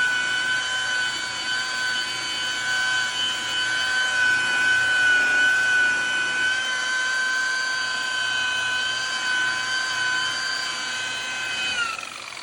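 Electric high-speed rotary buffer running steadily with a high whine as it polishes a headlight lens with cutting cream. Near the end the pitch starts to fall as the buffer is let off and spins down.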